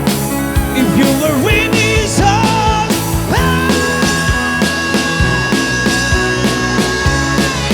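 Rock band playing live, drums and bass under a lead line: a few wavering notes, then one long held note from about three seconds in until near the end.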